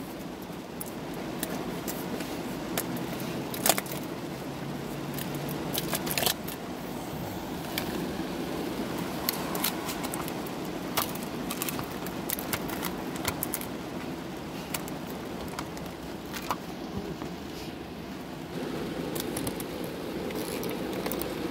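Plastic cottage cheese tub and its snap-on lid being handled and pried open: scattered sharp clicks and crackles of plastic, the loudest about four seconds in, over a steady low hum.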